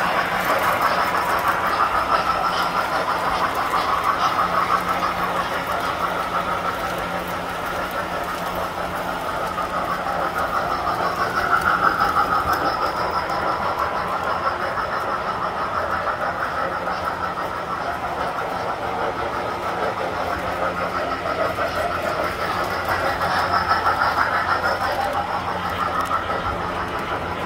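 Tinplate model trains running on the layout's track, a steady whir of electric motors and rolling wheels. It swells louder about halfway through and again near the end.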